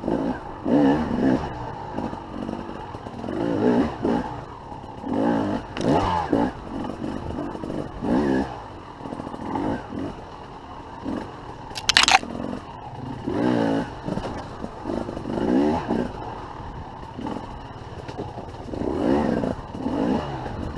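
Enduro dirt bike engine revving in short throttle bursts, the pitch rising and falling every second or two as the bike crawls over rock. A single sharp impact sound about twelve seconds in.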